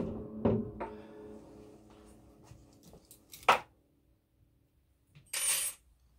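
A knock, then a 12-string guitar's open strings ringing together and fading over about three seconds, with a few light handling clicks as the guitar is taken off and set down. A short rustle follows, then a gap of dead silence and another brief rustle near the end.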